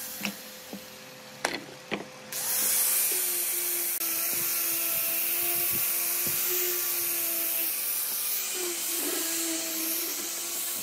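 Angle grinder with a sanding disc: its motor runs with a steady whine, and a few sharp knocks come in the first two seconds. From about two seconds in the disc bites into the wooden board, adding a loud, steady sanding hiss over the whine.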